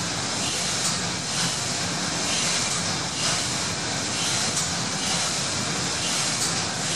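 Diagonal compound steam engine of the paddle steamer Gallia running below full speed: a steady mechanical clatter and hiss from the turning crankshaft and valve gear, with faint beats recurring about once a second.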